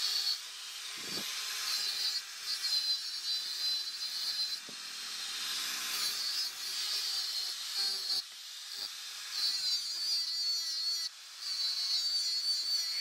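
Electric angle grinder with a sanding disc grinding the steel blade of a rebar knife: a high whine over a grinding hiss that rises and falls as the disc is pressed on and eased off the metal, easing briefly several times. A short thump comes about a second in.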